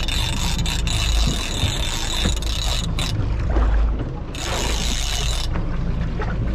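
Large spinning reel being cranked against a hooked fish, its gears whirring steadily, with two short pauses in the winding. A steady low rumble runs underneath.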